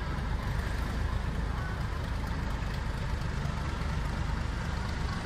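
Diesel locomotive engine running steadily as the locomotive moves away, a constant low rumble.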